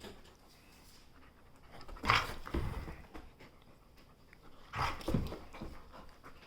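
A pet dog making short vocal noises twice, about two and five seconds in.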